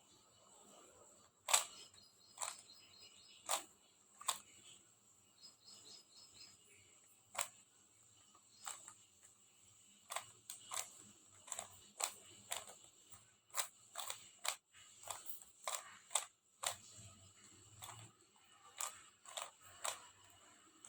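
3x3 Rubik's cube being turned by hand through last-layer moves: irregular sharp plastic clicks as the layers snap round, in quick runs of a few turns with short pauses between.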